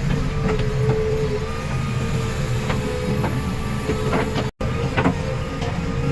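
Heavy diesel engine of a backhoe loader running steadily, with a constant whine above the engine note and scattered metallic clanks. The sound drops out for an instant about four and a half seconds in.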